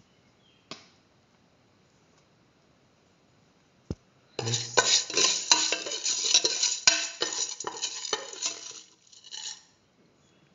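A metal spoon stirring dry mung beans and spice powder in a stainless steel pressure cooker pot, clinking and scraping against the pot for about five seconds, then trailing off. Two single clicks come earlier.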